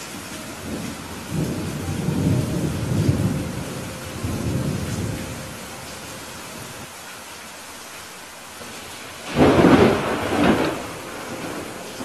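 Thunderstorm: steady rain with a low rolling rumble of thunder in the first half. A loud, sharp thunderclap comes in suddenly a little past the middle and peaks again about a second later before dying away.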